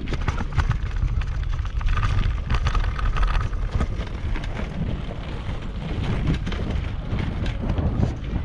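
Wind buffeting the microphone of a rider moving fast downhill on a rough gravel and concrete road. A heavy low rumble runs throughout, with many short rattling clicks from the bumpy surface.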